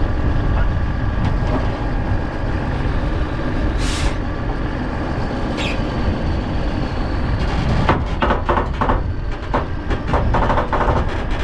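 Heavy truck engine running under strong wind buffeting the microphone, with a short burst of air hiss about four seconds in, typical of an air brake or air line venting. A run of short knocks and rattles follows in the second half.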